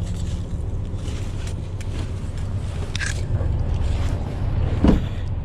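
Steady low rumble of a moving vehicle, with one short knock about five seconds in.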